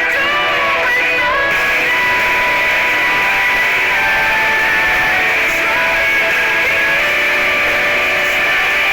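Background music with sustained pitched notes, likely guitar-led.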